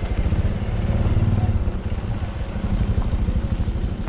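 A trail motorcycle's engine running steadily as it rides along a rough dirt road, heard from the rider's seat.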